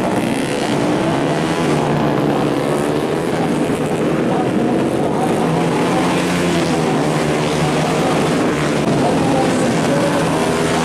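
Several 150 cc four-stroke underbone race motorcycles running at high revs, the engine pitch rising and falling as they accelerate and shift.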